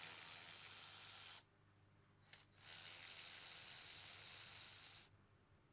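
Near silence: a faint steady hiss of recording background noise that cuts out twice to dead quiet.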